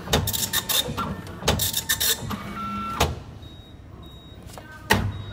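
Hitachi passbook update printer working the passbook with a rapid rattling run of mechanical strokes for about three seconds, ending in a sharp click. The machine then quietens as the passbook is pushed back out of the slot, with a few short high beeps and a loud clunk near the end.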